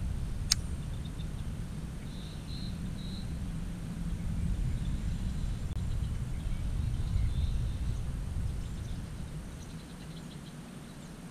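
Quiet outdoor ambience: a low steady rumble with faint high chirps coming and going, and one sharp click about half a second in.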